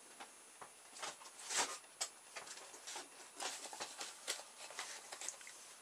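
Faint, irregular clicks and taps of small plastic parts being handled: a plastic gear wheel and a toy truck's parts.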